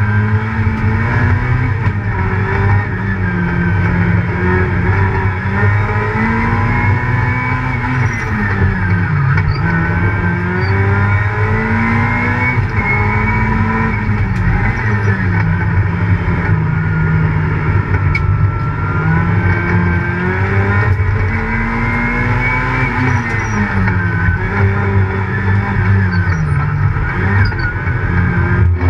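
Competition car's engine heard from inside the cabin, running hard on track. The revs climb and fall repeatedly as the car accelerates, shifts and slows for the turns, with the pitch dropping sharply several times.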